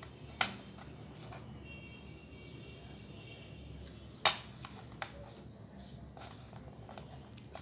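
Small handling sounds: a plastic ring cut from a bottle being worked with a pin. There are a few sharp clicks and taps, two louder ones about half a second and about four seconds in, over low background noise.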